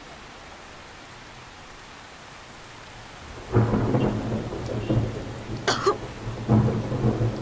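Steady heavy rain, then a loud roll of thunder breaks in suddenly about three and a half seconds in and rumbles on, with sharper cracks over it.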